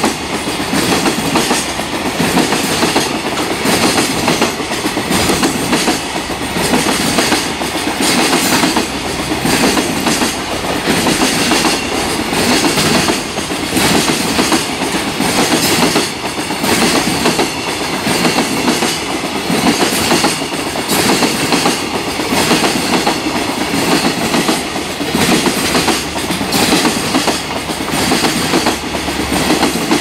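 A long freight train rolling past at speed, its wheels clacking over the rail joints in a steady, repeating rhythm of clickety-clack.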